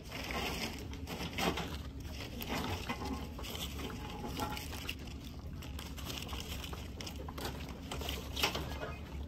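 Store ambience: a low steady hum with scattered rustles and light taps, the loudest of them about a second and a half in and again near the end.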